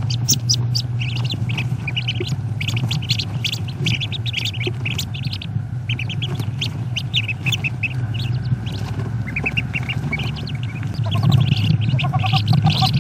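Wood duck ducklings peeping, many rapid high peeps overlapping, over a steady low hum. A lower, evenly repeated series of calls joins in near the end.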